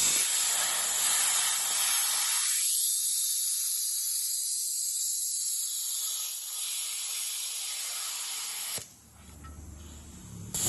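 Daihen D8000 plasma cutter's torch hissing steadily as it cuts, cutting off suddenly about nine seconds in and leaving a low hum. A quick rattle of sharp clicks comes at the very end as the arc is struck again.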